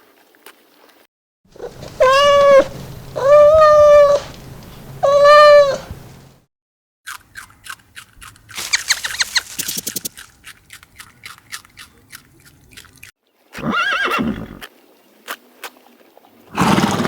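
Animal calls: three drawn-out pitched calls in a row, then a rapid pulsing call with clicks, and two shorter calls near the end.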